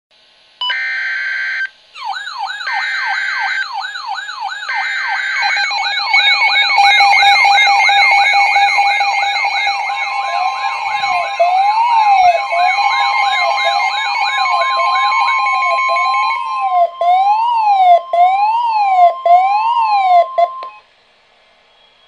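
Several NOAA weather radios, among them a Midland, alarming for a warning. It opens with three short buzzing bursts of the SAME data header, then the radios' warbling siren alarms overlap. About halfway in, the steady 1050 Hz weather-radio warning tone joins them, and everything cuts off abruptly near the end.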